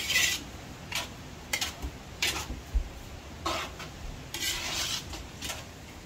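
Metal spatula scraping and stirring noodles around a large steel wok on a gas burner, in irregular strokes roughly once a second, the longest about three-quarters of the way through.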